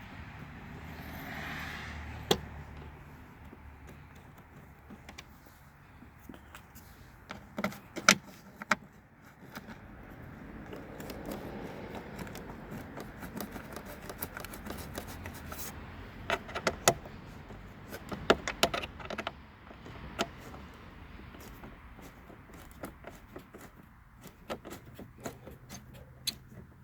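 Metal hand tool clicking and clinking against the tail light assembly as its fasteners are tightened by hand, with scattered sharp knocks in two clusters about a third and two-thirds of the way through, over soft handling rustle.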